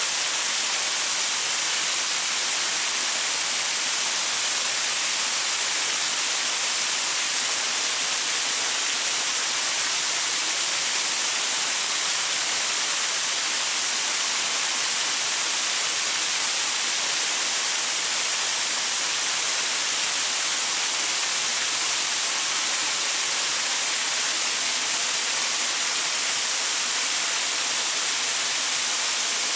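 Small waterfall splashing onto rocks: a steady, even hiss of falling water, strongest in the high treble.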